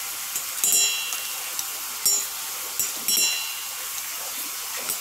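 Steel spoon scooping wet soaked dal and knocking against a stainless-steel mixer jar and bowl: several sharp metal clinks that ring briefly, over a steady background hiss.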